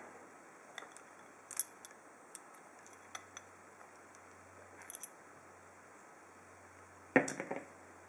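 Small metal clicks and scrapes as the bottom plate of a large steel ASSA padlock is worked loose by hand, with a louder metal clunk about seven seconds in.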